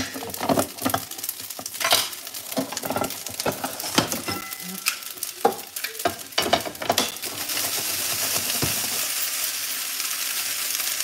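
Pasta sizzling in a hot frying pan as it is stirred and tossed. A utensil gives irregular clicks and knocks against the pan for about the first seven seconds, after which a steady sizzle carries on alone.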